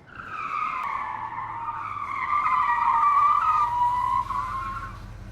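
Subaru Impreza power steering pump screaming: a loud, high, steady whine that wavers and sags slightly in pitch and fades near the end, over a low engine hum. The pump screams whenever the steering is turned, even after bleeding, and is due for a rebuild.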